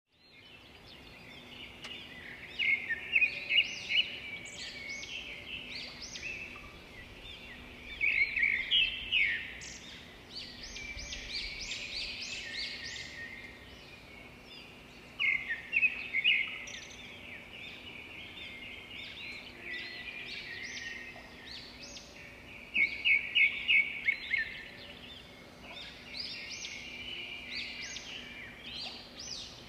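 Birds chirping and singing: many quick, high calls throughout, rising into louder chattering flurries every several seconds.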